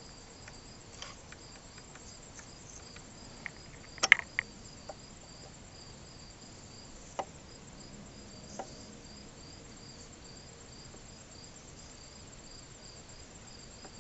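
A few sharp metallic clicks and knocks from handling the shifter parts, the loudest cluster about four seconds in, over a faint, steady chirping of crickets repeating about twice a second.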